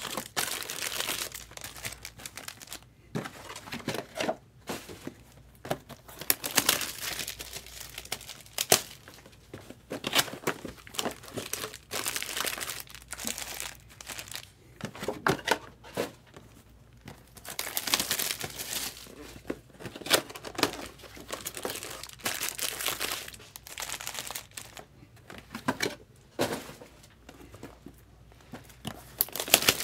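Plastic wrapping crinkling and tearing in irregular bursts of handling, as sealed trading-card boxes are opened.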